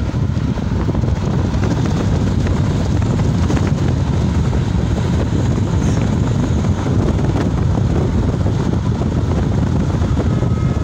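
Wind buffeting the microphone at the open side window of a car driving at highway speed, over steady road noise.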